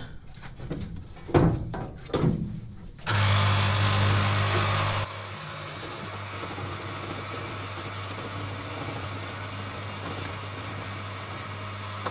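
A few knocks as the engine block is handled. Then, about three seconds in, the parts washer's electric pump switches on with a steady hum and a hiss of solvent running from its hose, flushing honing grit off the block. The flow drops to a lower, steady level about two seconds later.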